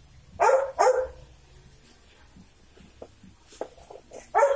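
A dog barking: two quick barks about half a second in, and another pair near the end.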